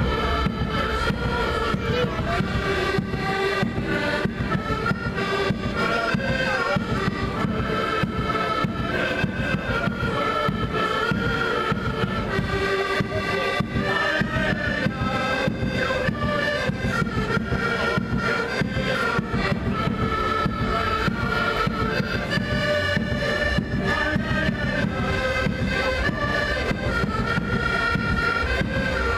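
Portuguese folk street band playing continuously: accordions holding a reedy melody over a steady drum beat.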